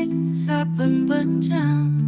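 Background music: a soft song with a singing voice over plucked acoustic guitar or ukulele chords.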